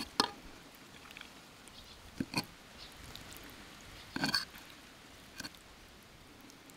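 A handful of short, sharp clicks and taps, about five in all, the loudest about four seconds in.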